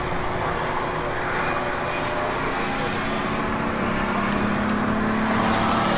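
Ford Ranger race trucks' engines running at speed around an oval track, a steady drone; a second, lower engine note joins about halfway and grows louder near the end as a truck comes closer.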